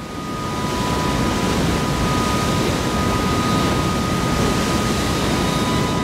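Barrage flood-warning siren sounding a steady, high two-note tone over the constant rush of floodwater pouring through the barrage, with wind on the microphone. The siren is the danger alarm that sounds once the release passes 2.5 lakh (250,000) cusecs.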